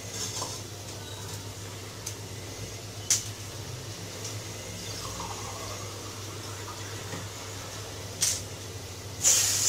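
Pots of leafy curry and rasam heating on a gas stove, with the steady hiss of the burners and the simmering pots. There is a light click a few seconds in and a couple of short knocks near the end.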